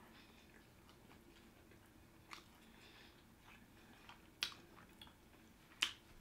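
A person chewing sushi, quiet wet mouth sounds with scattered clicks, three of them louder and spread through.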